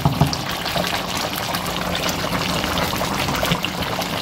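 Thick chicken, potato and tomato masala bubbling and crackling as it cooks in the pot, a dense run of small pops. The chicken and potatoes are cooked tender and the masala is ready for layering the biryani.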